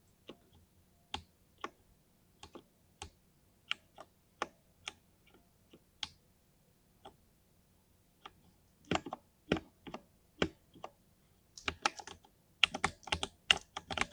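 Keys on a 60% mini mechanical keyboard with lubed linear switches being typed, with a thocky sound. Single keystrokes come about one or two a second at first, then quicker runs of typing from about nine seconds in, growing denser near the end.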